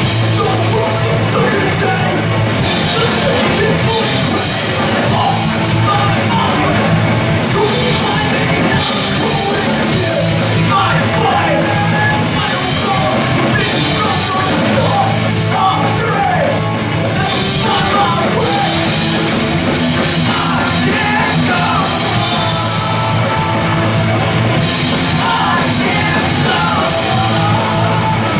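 A live punk/hardcore band plays loud and steady: electric guitar, bass guitar and drum kit, with a vocalist singing and yelling into the microphone.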